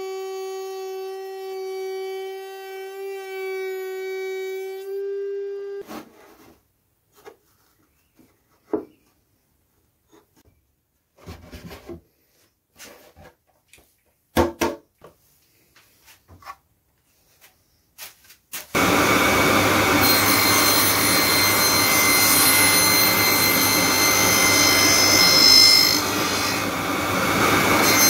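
A router motor runs with a steady high whine for about six seconds, then stops abruptly. Scattered knocks and handling clatter follow. About 19 seconds in, a benchtop table saw starts and runs loudly with a steady motor whine.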